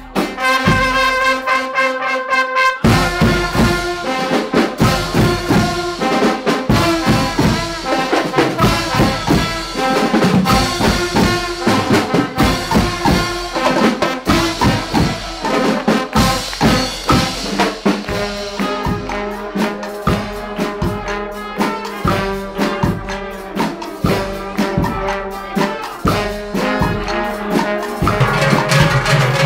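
Guggenmusik carnival band playing: trumpets, trombones and saxophone over drums and cymbals. A held brass chord opens, then the drums come in with a driving beat about three seconds in.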